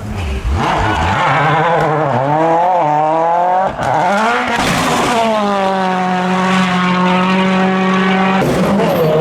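World Rally Car's 1.6-litre turbocharged four-cylinder engine at speed on a stage, revs rising and falling through gear changes, then held high and steady for about three seconds. The sound changes abruptly twice, about four seconds in and near the end, where clips are joined.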